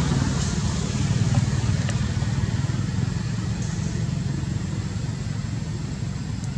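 A motor engine running steadily with a low hum that slowly gets fainter.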